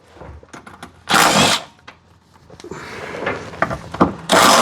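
Impact wrench fired in two short bursts, about a second and about four seconds in, loosening bolts on a car's underside, with quieter rattling from the tool and bolt between the bursts.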